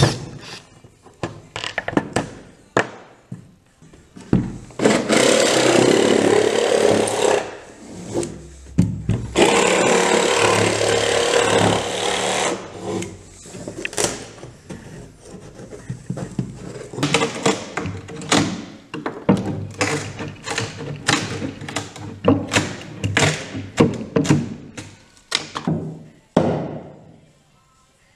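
Plywood boat-deck work: a few clicks and knocks from tools and loose screws, then a Makita cordless jigsaw cutting the plywood deck in two long runs, then a long series of sharp knocks from a hammer driving a chisel along the deck edge to cut it away from the gunwale.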